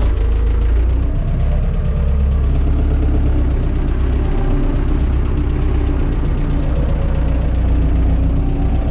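Renault 651 tractor's diesel engine running steadily as the tractor is driven.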